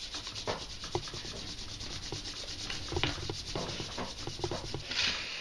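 Sheet of paper being handled and folded, with scratchy rubbing and small crinkles as fingers crease and smooth it flat.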